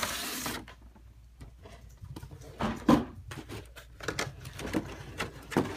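A cardboard collection box and its clear plastic blister tray being handled and pulled apart: a brief rustling slide at the start, then scattered clicks, taps and crinkles of stiff plastic.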